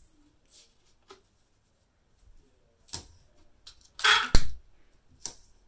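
Adhesive tape pulled off a desktop tape dispenser with a short rasping peel and torn off against its cutter with a sharp snap, about four seconds in. Faint paper rustles and light taps come before it and a small click after.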